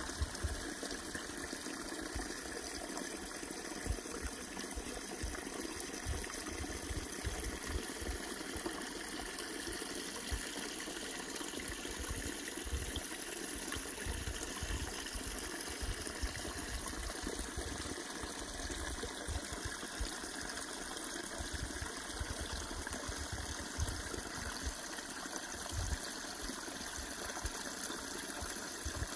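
Shallow woodland stream running over stones, branches and fallen leaves: a steady running-water sound.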